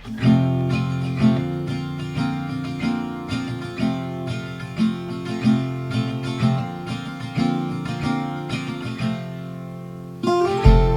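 Background music: an acoustic guitar strummed and picked in a steady rhythm, with a heavier bass pulse coming in near the end.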